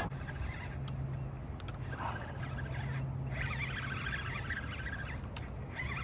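Birds chirping and warbling in two bouts, starting about three seconds in and again near the end, over a steady low hum, with a few faint clicks.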